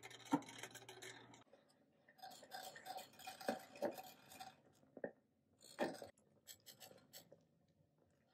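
Faint stirring of thick sago pudding in a stainless steel pot with a wooden spoon: the spoon scrapes and knocks against the pot's sides and bottom, a few knocks at a time, with wet sloshing of the thick mixture.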